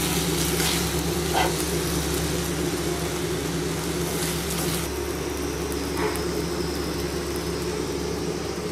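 Steady background hum with a few low tones, and a couple of light scrapes of a steel ladle in a steel kadai as chicken gravy is scooped out. About five seconds in, part of the hum drops away.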